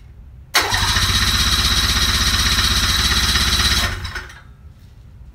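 Electric starter cranking a 500cc Rotax two-stroke snowmobile engine for about three seconds, with a fast even chugging under a high whine, then cutting off suddenly without the engine catching: the trouble was a bad spark plug.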